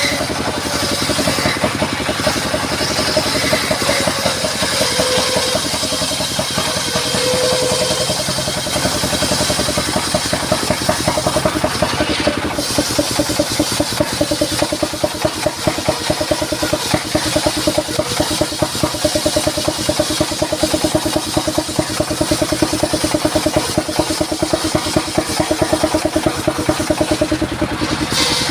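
Engine of a mobile circular sawmill running steadily with a fast, even pulse.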